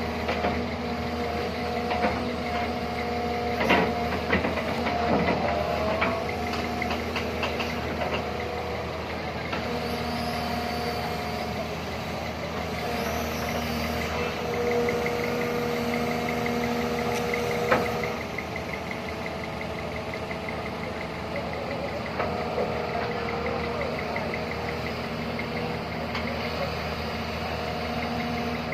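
Doosan DX140 excavator's diesel engine running with its hydraulics being worked as the boom and grapple move, a steady whine over the engine. A few sharp knocks come in the first six seconds and one about 18 seconds in.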